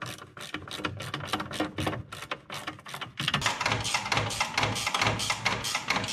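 Rapid, regular clicking and clatter of hand tools working on a snowmobile ski, about three clicks a second, quickening into a denser, faster run about three seconds in.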